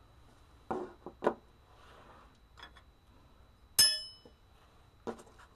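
Metal-on-metal knocks and clicks of hand tools and hardware on a truck's air brake chamber, with one sharp ringing clink about four seconds in, the loudest sound.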